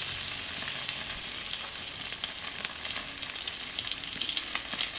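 Thick dry-aged ribeye steak searing on a grill grate over a charcoal chimney starter: steady sizzling of meat and fat, with frequent sharp crackles and pops.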